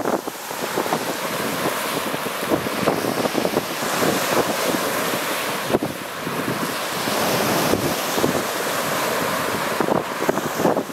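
Lake Superior waves breaking and washing on a rocky, pebbly shore, a continuous surf noise, with wind buffeting the microphone.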